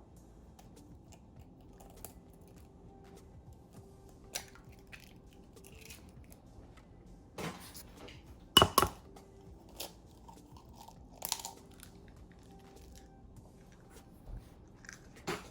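Scattered kitchen handling sounds: a few sharp knocks and clatters of bowls and utensils being moved and set down, the loudest a quick double knock about halfway through.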